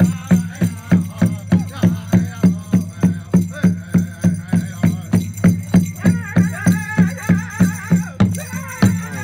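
Hoop dance song: a drum beaten in a steady even pulse of about three beats a second, with wavering singing over it that comes in a few seconds in and is strongest near the end.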